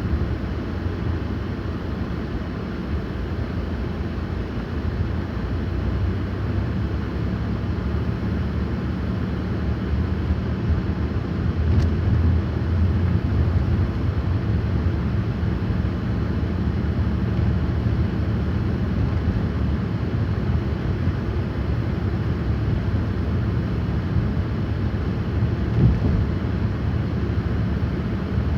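Steady low rumble of a car driving on a snow-covered road: engine and tyre noise with a constant low hum.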